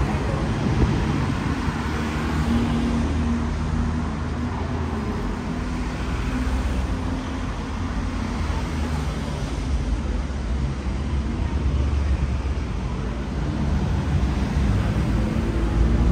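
City street traffic: car engines running and passing at low speed, a steady low rumble that grows a little louder near the end.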